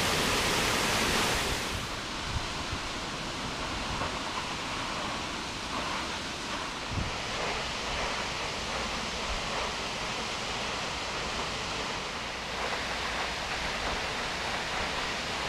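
Steady rush of the Acquafraggia waterfall; about two seconds in it drops in level and turns duller and more distant, with wind on the microphone and a couple of faint knocks.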